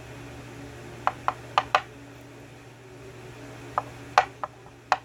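Small sharp metal clicks and taps, about eight in irregular groups, from the pins and parts of a disassembled Yale pin-tumbler lock cylinder being handled and taken out.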